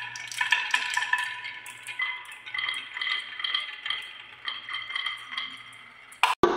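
Marbles rolling and clicking down a wooden marble run, with many small clinks over a steady ringing. The sound fades gradually and then cuts off abruptly near the end.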